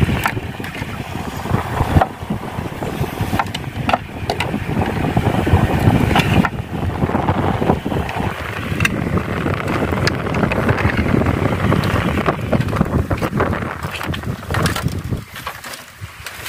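Strong wind buffeting the microphone, a dense low rumble that eases briefly near the end, with scattered light clicks and knocks through it.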